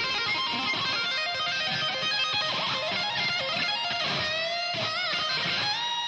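Electric guitar playing a lead line of held notes with string bends and vibrato, with no drums or bass under it.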